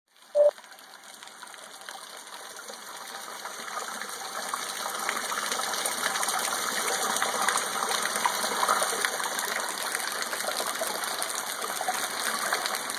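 Storm rainwater gushing and splashing steadily, with a crackle of drops, growing louder over the first several seconds and then holding. A short, loud beep-like tone sounds about half a second in.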